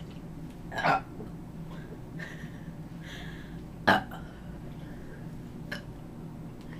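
A girl burping: a drawn-out burp about a second in, then a short, sharp one a few seconds later, and a small one near the end.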